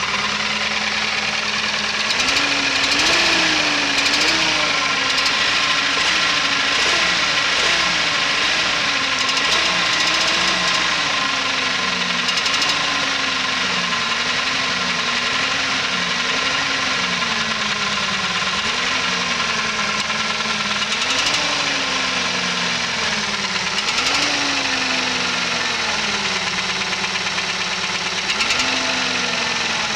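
Engine running just after its first start, with a rapid knock under it. The engine speed rises and sags unevenly about every two seconds.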